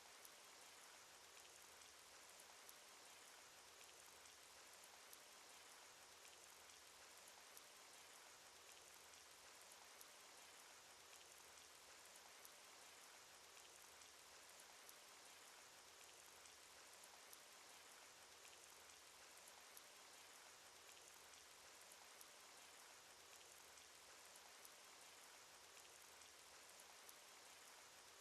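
Cartoon rain sound effect: a faint, steady hiss of rain with scattered drop ticks.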